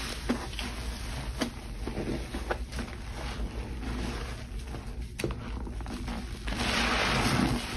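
Frothy cleaning-product solution in water sloshing and splashing, with a few sharp clicks. A louder rush of splashing comes near the end.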